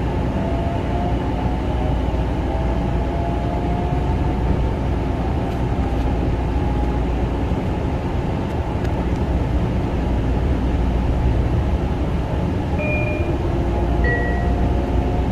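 Long Island Rail Road Kawasaki M9 electric train running on the rails: a steady rumble of wheels and track, with a faint motor whine rising slowly in pitch over the first several seconds. Near the end come a couple of brief high squeals.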